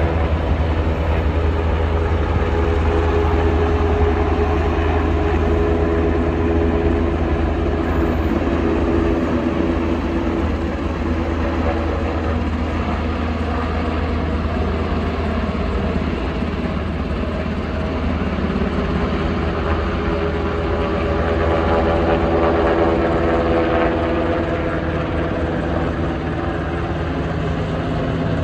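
UH-60 Black Hawk helicopter with its twin turboshaft engines, flying low overhead with a water bucket slung beneath it. The rotors give a steady, heavy throb, and its pitch drifts up and down as the helicopter moves.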